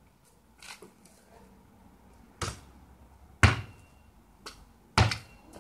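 Basketball thudding several times as it is bounced and thrown at a small hoop, the loudest hit about three and a half seconds in. A short ringing tone follows two of the hits, as of the ball striking the metal rim.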